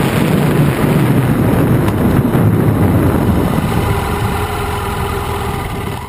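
BMW F800GS motorcycle's parallel-twin engine running under wind noise on the bike-mounted camera's microphone. The engine settles to a steady, even note as the bike slows toward a junction, then the sound fades out at the very end.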